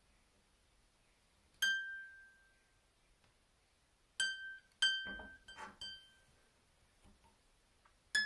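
A single high string of a Musicmakers Jolie lever harp plucked about five times to check its tuning, each note ringing briefly and fading, with faint handling noise between them. In the last note, near the end, the Camac lever is engaged and the pitch sits a little higher; that engaged note is still too sharp.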